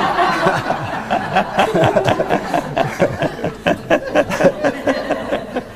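Audience laughing in a hall at a joke.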